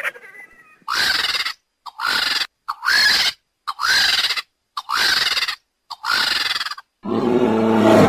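An eagle calling: six loud, harsh yelping calls about a second apart, each rising and then falling in pitch. Near the end comes one longer, deeper growling call.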